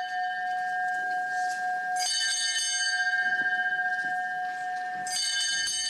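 A small bell struck twice about three seconds apart, each stroke ringing on into the next, signalling the start of the mass.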